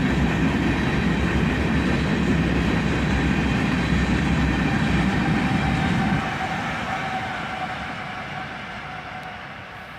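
An empty ore train led by an ET44AH diesel locomotive rolls past: a steady low locomotive rumble with wheels running on the rails. It fades gradually from about six seconds in as the train moves away.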